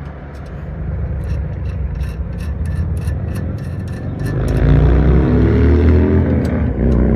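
A passing vehicle's engine swelling up about four seconds in and becoming the loudest sound, its pitch bending as it goes by, over a steady low rumble. Before it, a run of light clicks, a few a second.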